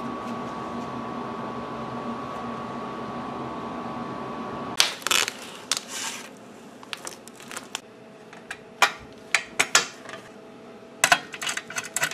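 Steady background hum with a thin whine, then from about five seconds in, clinks and clicks of steel screws and nuts and an aluminium chassis bottom plate being handled. A quicker run of clicks near the end comes as a nut driver works a screw on the plate.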